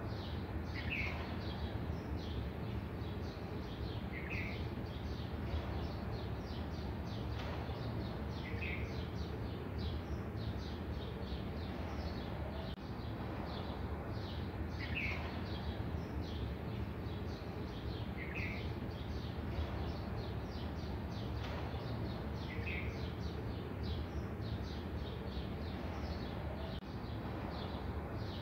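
A bird giving a short chirp every few seconds, with fainter chirping throughout, over a steady low hum.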